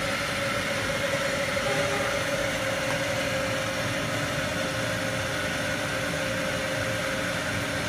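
Bridgeport surface grinder running with a steady mechanical hum and a faint held tone that fades near the end. The spindle is in good condition and is described as quiet.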